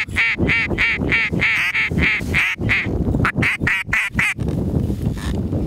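A rapid series of loud mallard hen quacks, about a dozen in quick succession with a short gap near the middle, stopping about four and a half seconds in, over a low steady rumble.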